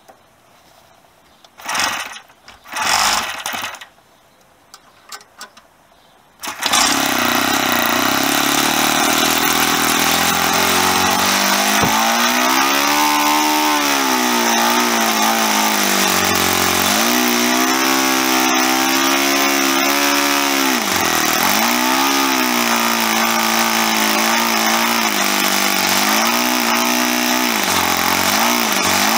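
Super Custom .52 four-stroke glow model aero engine with propeller firing up after a couple of short bursts, about six and a half seconds in, then running continuously, its revs dropping and rising several times as the throttle is worked. It runs now that its broken valve adjustment screw has been replaced with an O.S. part and the valve clearances set.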